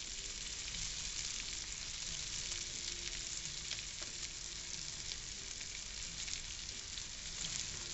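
Sliced onions, garlic, serrano peppers and bacon frying in bacon grease and butter in a frying pan, a steady sizzle with a few small crackles.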